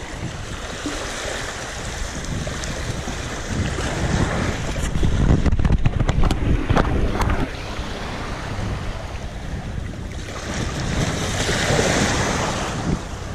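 Wind buffeting the microphone over small waves washing in the shallows. The wind gusts loudest about halfway through, and a wave washes in near the end.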